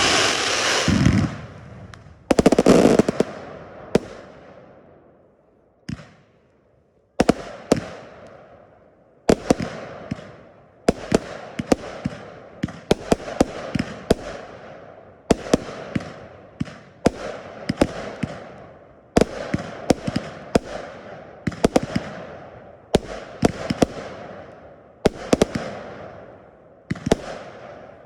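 Fireworks display going off: two big bursts with long fading tails at the start, a short lull, then from about seven seconds in a steady run of sharp bangs, roughly one to two a second, each trailing off.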